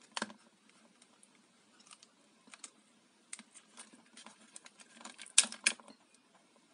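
Scattered light clicks and taps of hands handling the opened plastic housing of a hand blender and its wiring, with a sharper click near the start and two louder knocks about five and a half seconds in.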